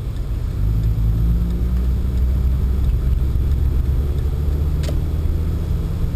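Pontiac Sunfire's engine and road noise heard from inside the car while driving; about half a second in the engine note gets louder and steadier, as under more throttle.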